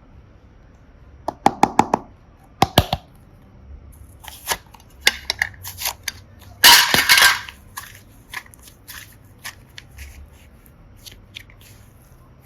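Slime being handled and pressed: quick clusters of sharp clicks and pops, scattered smaller pops, and a louder crackling stretch lasting under a second about seven seconds in.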